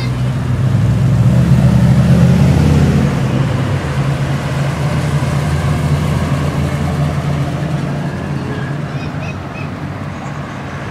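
Low rumbling engine of a car driving slowly past, loudest about two seconds in and then gradually fading as more cars roll by.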